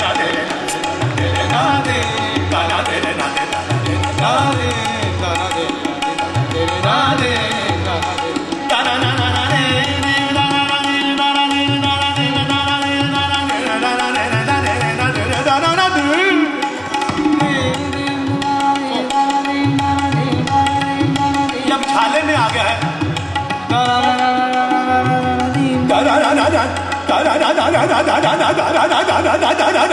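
Live Hindustani classical vocal performance: a male singer holds long notes and sings fast, wavering runs without words, accompanied by harmonium and by tabla strokes.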